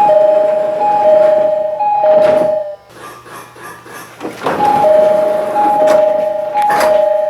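JR East E501 series train door chime: a two-note high–low chime sounded three times in a row, then the same three-fold chime again about four and a half seconds in. Short rushes of noise come between and near the end.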